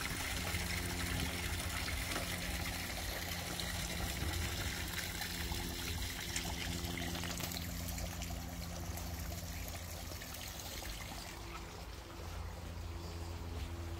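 Water trickling and splashing steadily into a garden koi pond, with a faint low steady hum underneath.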